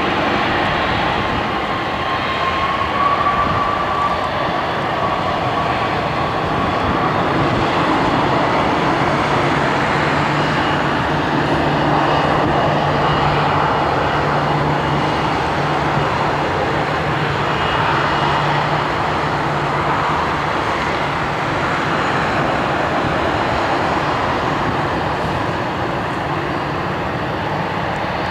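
Jet engines of a taxiing Airbus A320 at low taxi power, a steady rushing whine. A low steady hum joins for about ten seconds in the middle.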